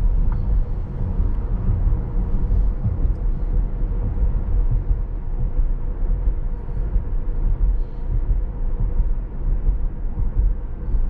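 Steady low road rumble and tyre noise inside the cabin of a Tesla Model S Plaid, an electric car with no engine sound, driving at about 35 mph on a rain-wet road. A faint steady hum runs over it.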